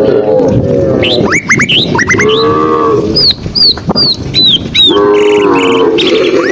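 Cows mooing in long, low calls, one near the start, one in the middle and another near the end. Between them, from about a second in, birds chirp in quick high notes that sweep up and down.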